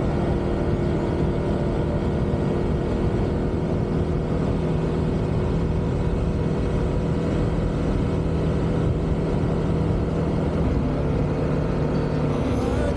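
Honda PCX125 scooter's single-cylinder engine running at a steady speed under wind and road noise, heard from a handlebar-mounted camera.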